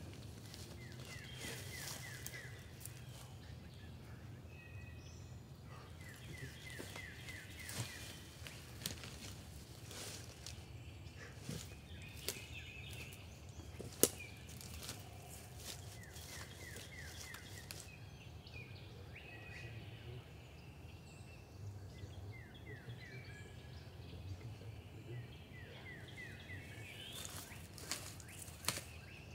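Footsteps crunching through dry leaf litter with twigs snapping, the sharpest snap about halfway through, as people walk away. A songbird sings a short repeated trill every few seconds.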